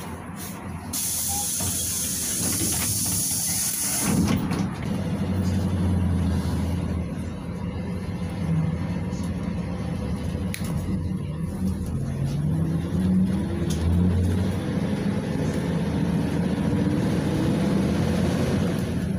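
Inside a PAZ 32054 bus under way: the ZMZ-5234 V8 petrol engine pulls and rises in pitch as the bus picks up speed, over road and tyre noise. A loud air hiss sounds for about three seconds near the start.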